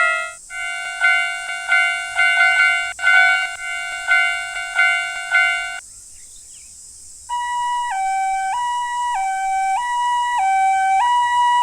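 Railroad crossing warning bell dinging about twice a second, stopping about six seconds in. A little over a second later an ambulance siren starts, alternating steadily between a high and a low note in the Japanese 'pee-poh' pattern.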